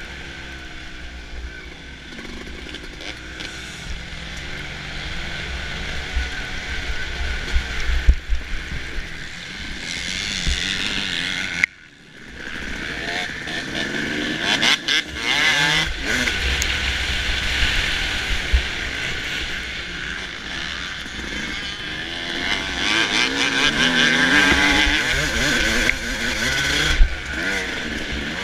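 Suzuki RM250's single-cylinder two-stroke engine revving hard and falling back again and again as the bike is raced around a motocross track, heard from the bike's onboard camera. A few sharp knocks come about eight seconds in, and the sound drops away sharply for a moment near the middle before the engine picks up again.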